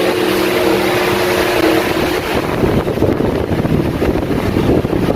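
Arge Twister 50 cm wall fan running: a steady motor hum for about the first two seconds, then its airflow hits the microphone as a loud, uneven rush of wind noise.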